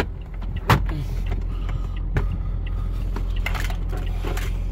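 Car running, heard from inside the cabin: a steady low hum, with a sharp click a little under a second in and another about two seconds in.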